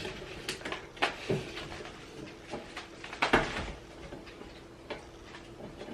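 Scattered clicks and light knocks from handling a new mini refrigerator and its fittings, the loudest knock about three seconds in.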